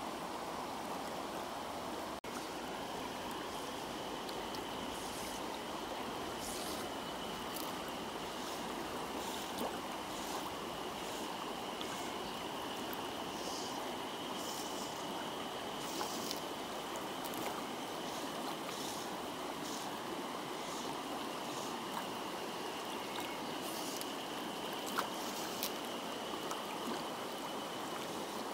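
Shallow river running over a stony riffle: a steady, even rush of flowing water.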